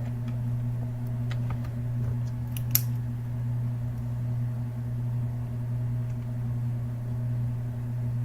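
A few clicks at a computer over a steady low hum, the loudest click near three seconds in.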